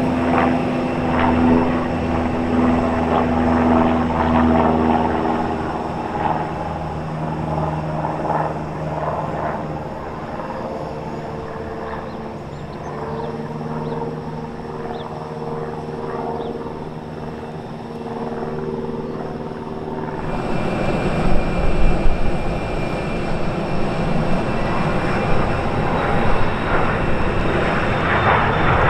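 Cessna 172 Skyhawk's piston engine and propeller running at climb power, a steady hum whose pitch shifts a couple of times. About twenty seconds in it gives way to the louder rush and high whine of a Bombardier Challenger business jet's engines at takeoff power, growing toward the end.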